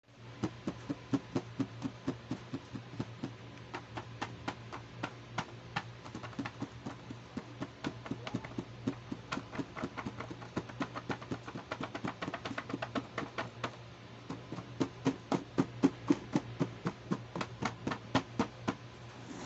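Fingertips and nails tapping on a clear plastic storage box lid, a steady run of sharp, irregular taps at about three a second, some louder ones a little past the middle.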